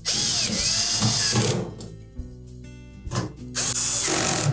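Power drill-driver running screws into a dryer's sheet-metal front panel, in two runs: one of about a second and a half at the start and one of about a second near the end, the motor's whine bending up and down as each screw drives in.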